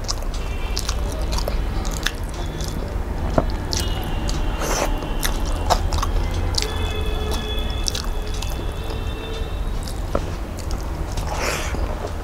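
Close-up eating sounds: a man chewing and smacking a mouthful of rice and curry eaten by hand, with many short wet clicks and squelches over a steady low hum. Faint high tones sound in the background for a few seconds at a time.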